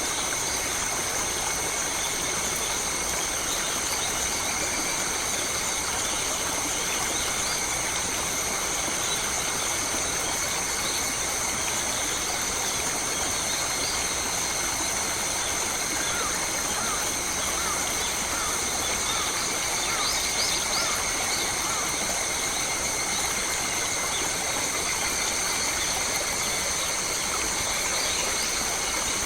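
Forest ambience: a constant rushing of stream water under a steady high-pitched hum, with short bird chirps scattered through, clustered a little past the middle.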